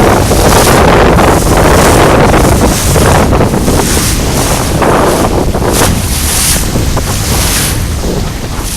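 Strong gusty wind buffeting the microphone, a loud rumbling rush that rises and falls with the gusts and eases somewhat in the last few seconds.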